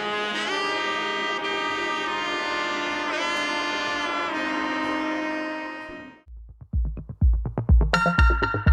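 Background music: sustained brass-like melody notes that fade out about six seconds in, followed by an electronic track with a pounding bass-drum beat about twice a second.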